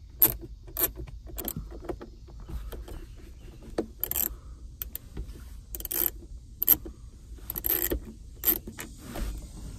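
Hand ratchet with a 7 mm socket clicking in short runs, with light metal clinks, as the rear speaker's mounting screws are worked loose. The clicks come at uneven intervals, closer together in the first two seconds and more spread out after.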